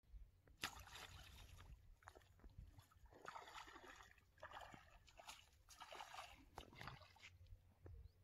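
Faint splashing of a small hooked piranha thrashing at the water's surface, coming in several short bursts over a few seconds.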